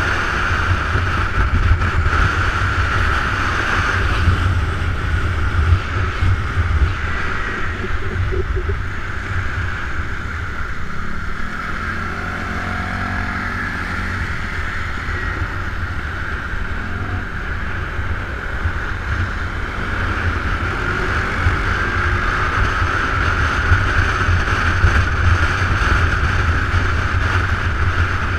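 Wind rushing over the microphone of a camera mounted on a moving motorbike, with the bike's engine running steadily underneath. It is slightly quieter in the middle.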